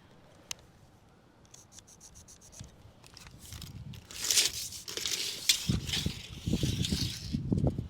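Scraping and rubbing on a concrete slab, faint ticking at first, then louder and hissy from about four seconds in until just before the end.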